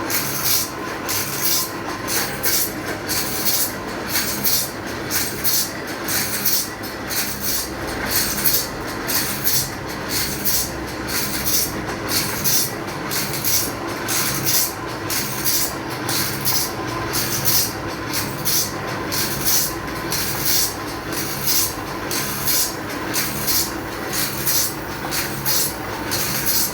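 Teeth of a circular saw blade being sharpened, with rhythmic rasping strokes about two to three a second over a steady hum.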